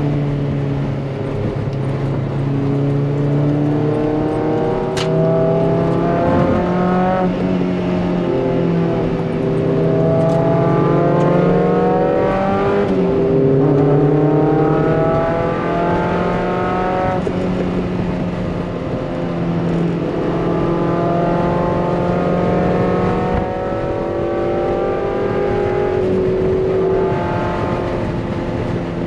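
A Mazda MX-5 NC's 2.5-litre engine heard from inside the cabin while it is driven hard on a race track. The engine note climbs in pitch under acceleration and drops back several times, at gear changes and lifts for corners.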